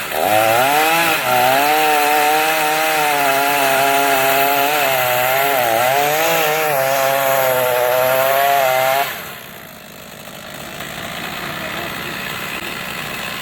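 Chainsaw making the felling cut through a pine trunk, its engine pitch wavering and dipping as it bogs under load in the wood. The saw cuts off abruptly about nine seconds in, leaving a quieter steady engine running underneath.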